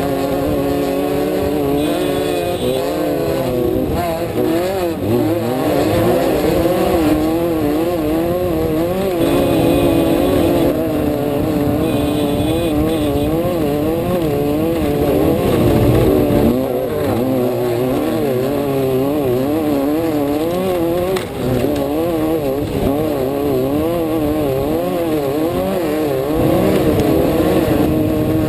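Off-road race vehicle's engine heard from inside the cab, running hard, its revs rising and falling rapidly and continuously.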